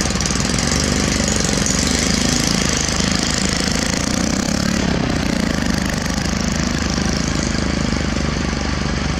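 Komatsu PC200 excavator's diesel engine idling steadily.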